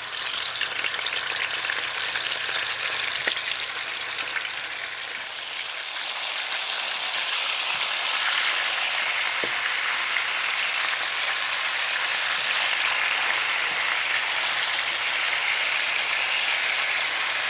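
Chicken pieces sizzling and crackling in hot vegetable oil in a pan as they brown, a steady frying hiss.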